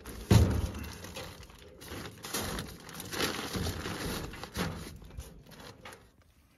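Bear bags rustling and bumping as they are set down in a metal bear box, with a heavy thump near the start.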